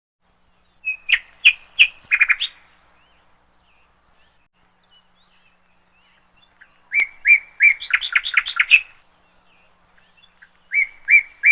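A songbird singing: three short song phrases, each a few separate high notes that run into a quick trill, spaced several seconds apart, the last one starting near the end.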